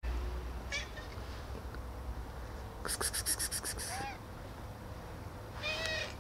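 Hungry stray cats meowing: a short high meow under a second in, another about four seconds in, and a longer meow near the end. About three seconds in comes a quick run of about nine sharp scratchy clicks in under a second, the loudest sound here.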